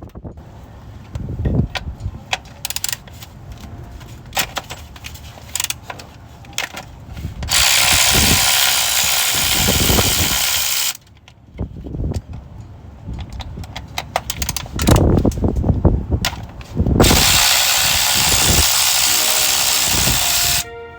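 Mechanic's tools working on a diesel engine: scattered metal clicks and knocks, and twice a loud, steady hissing run of a power tool lasting about three and a half seconds each.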